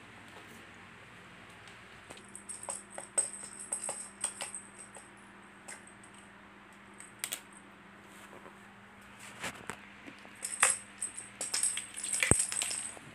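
Kitten's toys jingling and clattering in irregular bursts of small metallic jingles and plastic clicks as the kitten bats them around. The loudest bursts come about two to five seconds in, and again from about ten seconds to near the end.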